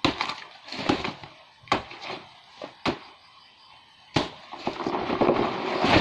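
Blade chopping into a banana plant's soft trunk: five sharp cuts about a second apart, then from about four seconds in a long crackling, rustling crash that grows louder as the cut banana plant topples through its leaves.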